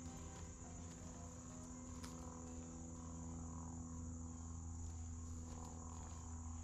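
Faint outdoor insect chorus: one steady, unbroken high-pitched drone of crickets or cicadas, over a low steady hum.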